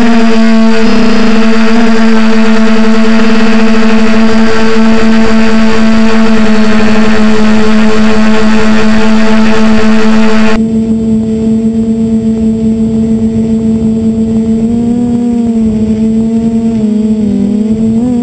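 DJI F450 quadcopter's four electric motors and propellers, heard from the onboard camera, giving a loud, steady, pitched hum. A high hiss on top drops away suddenly about ten seconds in, and the pitch wavers briefly near the end as the throttle shifts.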